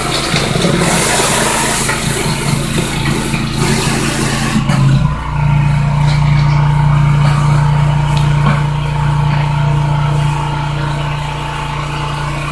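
Pressure washer engine running steadily under the hiss of water spray. About five seconds in, the sound changes abruptly: the spray hiss mostly drops away and the engine's steady hum takes over.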